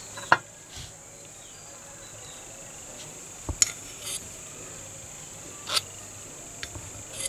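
A handful of short, sharp metallic clinks from tin epoxy cans and a metal spatula being handled, the loudest about a third of a second in, over a steady faint high-pitched hiss.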